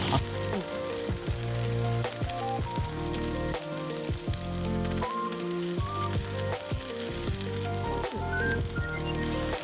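Food sizzling as it fries in a pan, a steady hiss, with background music playing a melody over it.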